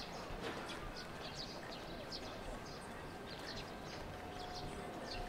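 Birds chirping: many short, high chirps from several birds, over a steady outdoor background.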